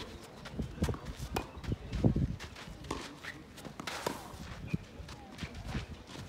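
Tennis rally on a clay court: tennis balls struck by rackets with sharp pops, the loudest about two seconds in and another about four seconds in, with players' footsteps scuffing and sliding on the clay between shots.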